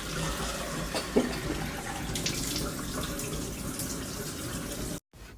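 Steady rush of running water, like a tap running into a sink, that cuts off abruptly near the end.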